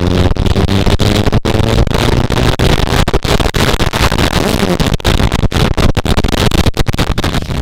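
Wind rushing over the microphone of a camera on a moving motorcycle, with the motorcycle's engine under it. The sound drops out briefly many times.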